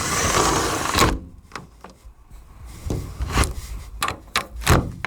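A window sliding along its track for about a second, ending in a sharp knock, then a run of separate clicks and knocks from its latch and frame, the loudest near the end.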